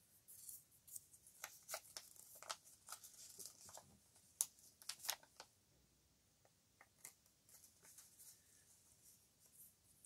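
Faint rustling and light ticks of a small strip of paper handled between the fingers, with a few sharper clicks about halfway through, then only scattered soft ticks.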